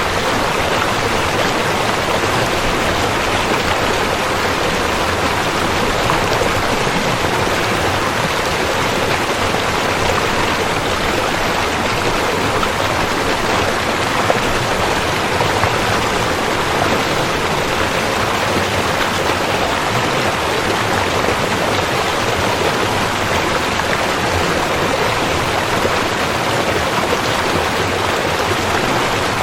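A river or stream flowing steadily, with an even rush of water.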